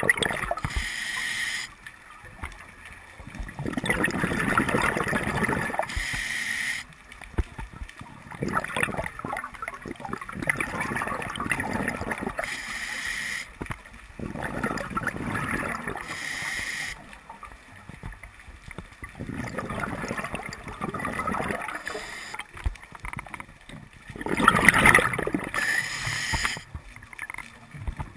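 Scuba regulator breathing heard underwater: several short hissing inhalations through the demand valve, each alternating with a longer rush of bubbling exhaled air, in a slow irregular cycle of a few seconds.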